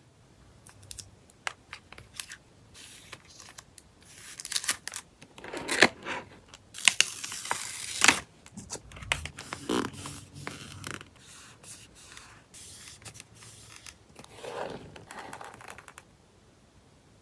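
Hands packing photocards: crinkling plastic sleeves and paper, with small taps, scrapes and clicks, and a longer dense rustle about seven to eight seconds in. The handling stops shortly before the end.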